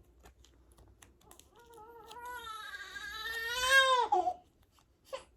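A baby crying: one drawn-out fussy wail that swells in loudness, rises a little in pitch near the end and breaks off about four seconds in.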